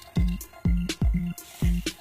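Background music with a steady beat: a low drum hit and bass note about twice a second.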